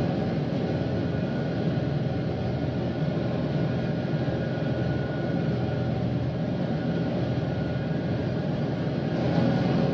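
Farm tractor engine running steadily while pulling a hay rake, with a slightly louder swell near the end.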